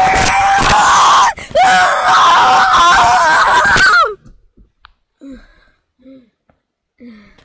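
Children screaming loudly in long, wavering, high screams, broken once about a second and a half in. The screams cut off suddenly about four seconds in. After that there are only a few faint, short low sounds.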